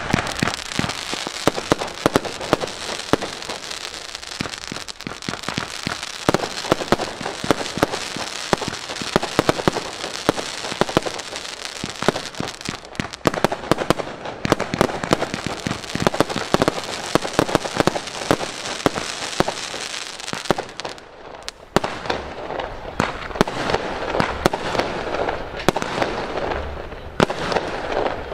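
Fireworks show: a dense, continuous run of launches, bangs and crackling bursts, beginning sharply with the first launch. There is a brief lull about three-quarters of the way through.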